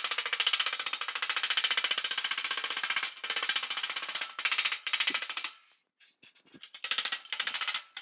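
Rapid, light hammer blows glancing off the edge of a sheet-metal fender panel as the flange around the headlight opening is rolled over on a buck: a fast, steady stream of sharp metallic taps in runs of one to three seconds, with a brief pause about six seconds in.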